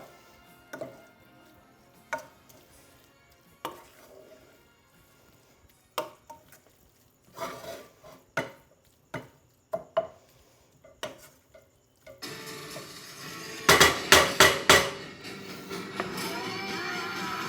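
Cooking utensils knocking and clinking against pots and pans, in separate strikes a second or two apart, with faint music under them. About twelve seconds in, a louder steady noise sets in, with a quick run of loud clatter.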